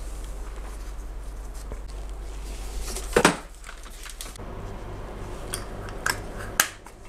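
Light handling of metal parts on a workbench: a steady low hum, then a single loud knock about three seconds in, followed by a few short metallic clicks as the alternator and its pulley are handled.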